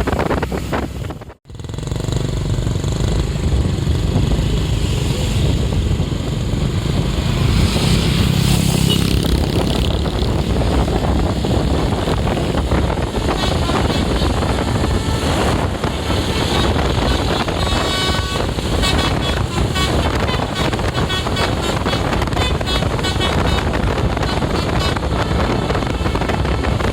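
A tour bus engine rumbles close by. From about halfway in, a basuri 'telolet' multi-tone horn plays a quick tune of short repeated notes for several seconds.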